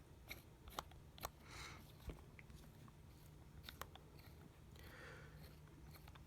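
Faint, scattered small clicks and taps from hands working on a phone and its small tools, with a couple of brief soft rustles over a low hum.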